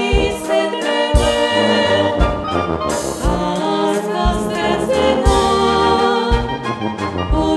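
Brass band (dychová hudba) playing with singers: voices carried over brass chords, with a low bass note about once a second.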